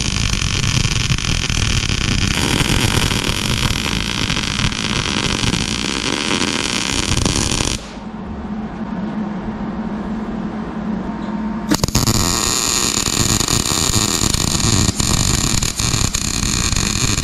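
MIG welder arc crackling steadily while a rod is welded on. The arc stops about eight seconds in, leaving a low hum, and starts up again about four seconds later.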